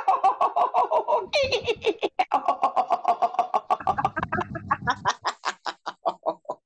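A woman laughing in rapid staccato "ha-ha-ha" pulses, about eight to ten a second, all on one long exhale as a laughter-yoga breathing exercise; the pulses thin out and stop near the end as her breath runs out.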